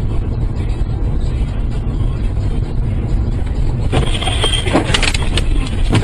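Steady road and engine rumble heard from inside a car. About four seconds in, a truck crash breaks in: a brief high squeal, then several sharp knocks and clattering impacts as the truck ahead swerves off the road in a cloud of dirt and snow.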